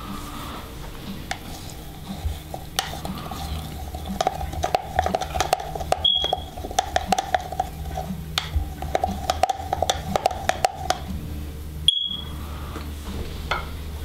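Coffee grounds being stirred briskly in an Aeropress's plastic brew chamber to wet them all after the first pour: a fast run of light clicks as the stirrer knocks against the chamber walls. It pauses briefly about eight seconds in and stops about eleven seconds in.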